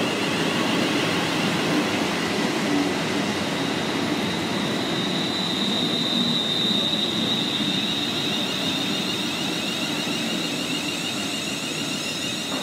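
A Class 350 Desiro electric multiple unit, two units coupled, running past along the platform with a steady rumble. A steady high whine comes in about five seconds in.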